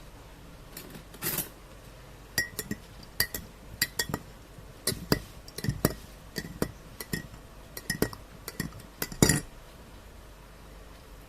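A metal spoon clinking against a glass in about twenty light, irregular strikes, each with a short ring, with a longer, louder clatter near the end. The spoon is stirring a glass of hot ginger drink.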